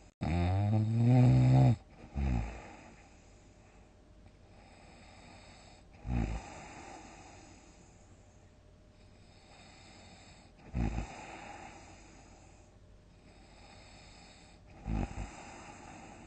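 A sleeping person snoring loudly: a long pitched snore at the start, a short one right after, then shorter snores about every four to five seconds, with a faint breathing hiss between.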